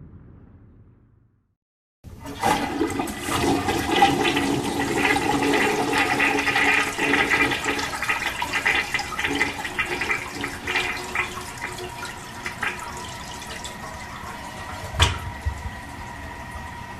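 A toilet flushes: after a low rumble fades out and a brief silence, a loud rush of water starts abruptly about two seconds in and gradually settles into a steadier running of water. There is a short thud near the end.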